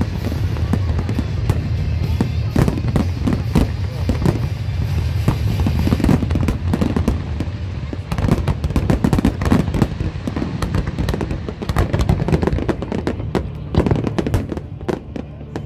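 Fireworks display: a fast, unbroken run of bangs and crackles from shells and comets bursting, with music playing underneath.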